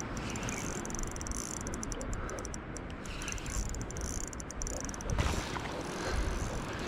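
Spinning reel's drag ticking rapidly in two stretches as a hooked fish strips line from the light outfit pushed to its limit, over a steady wash of water and wind. A single knock about five seconds in.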